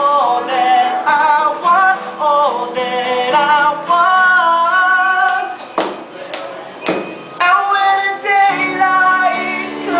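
A man singing a slow love song to his own acoustic guitar accompaniment, holding long notes that step up and down in pitch. Two brief knocks come about six and seven seconds in.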